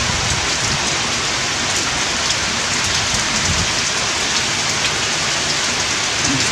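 Steady rain falling: a dense, even hiss with scattered ticks of individual drops.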